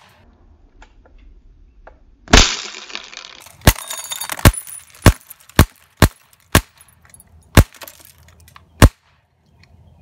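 A rapid string of about nine sharp shots from an XCP air-cartridge BB pistol, one or two a second. At the first hits, about two seconds in, a glass beer bottle shatters, and broken glass tinkles briefly before the remaining shots.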